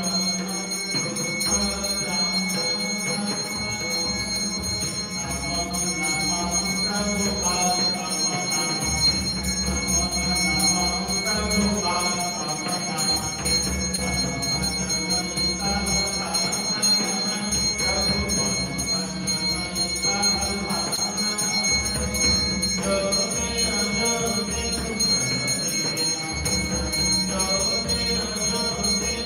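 Hand bell of the evening arati rung continuously, its steady high ringing carried over devotional music with a low drone and a shifting melody.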